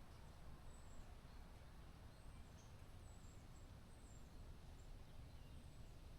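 Near silence: a faint steady low background hum, with a few faint, short, high chirps scattered through it.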